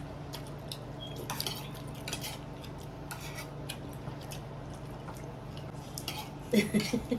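Cutlery clinking against plates and bowls during a meal: scattered light clicks and taps over a steady low hum.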